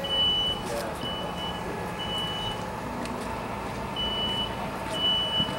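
Smoke alarm sounding its three-beep evacuation pattern: three high, steady beeps about a second apart, a pause, then two more, set off by smoke from the room fire. A steady low hum runs underneath.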